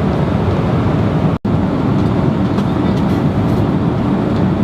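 Jet airliner cabin noise in flight: a steady, loud engine and airflow rumble, broken by a very brief dropout about a second and a half in.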